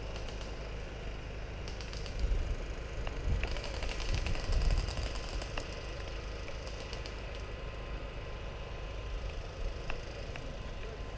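Short bursts of rapid clicking from airsoft guns firing, over the low rumble and thumps of the wearer moving with the camera.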